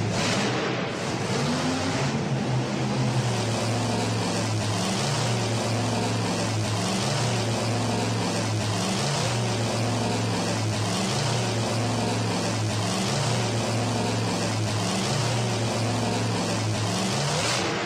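A big truck engine sound effect running continuously, with a rushing roar and a low drone whose pitch steps up and down every second or so.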